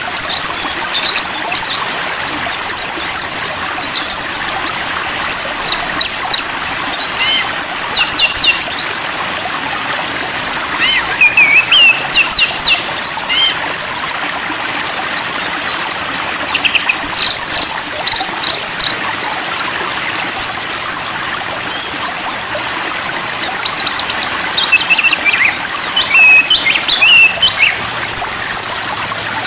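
Songbirds chirping and whistling in scattered bursts of short, high, quickly sliding calls over a steady rush of running water, as in a stream: a bird-therapy recording played to calm a caged magpie-robin.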